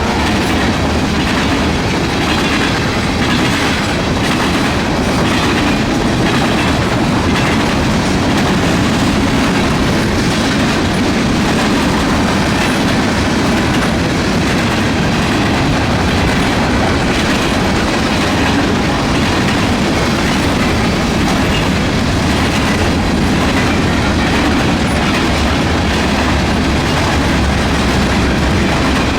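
A train passing, its wheels running on the rails with a steady, loud rumble that does not let up.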